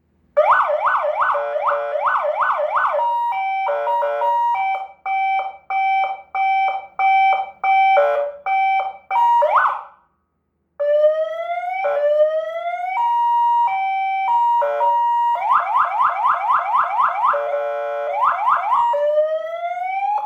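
CJB200W 200-watt electronic siren sounding through a flat cast-iron TS200-N speaker, stepped through its tones: a fast yelp of quick up-and-down sweeps, a choppy hi-lo two-tone, and slower rising wail sweeps. It cuts out briefly around the halfway point, then comes back with the wail, steady two-tone and yelp again.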